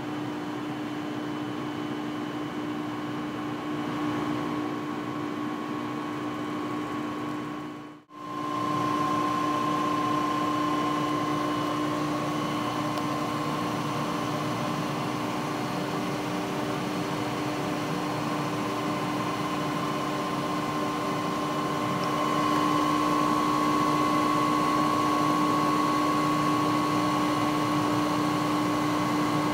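CCI (Citron) surface grinder's spindle motor running, a steady hum with a high whine, driving its 12-inch grinding wheel at 1720 rpm. The sound cuts out for a moment about eight seconds in, then comes back a little louder, and grows louder again near the end.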